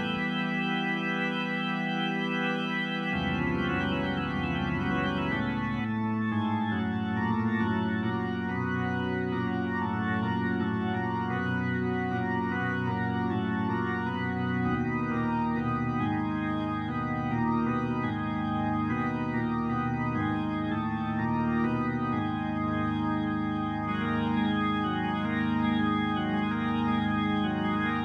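Instrumental background music of long held keyboard chords that change every few seconds.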